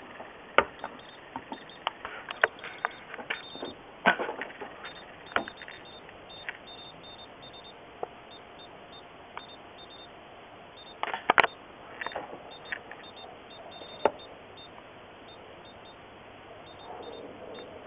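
Geiger counters clicking at random, irregular intervals, with short high beeps, as they count radiation from uranium glass marbles; the clicks bunch together in a few places.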